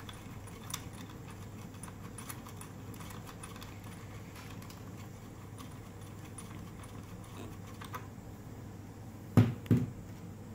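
Small clicks and scrapes of hands unscrewing and pulling a plastic circular aviation-connector plug out of a weather sensor's base, over a faint steady hum. Two dull thumps about nine and a half seconds in as the sensor housing is set down on the desk.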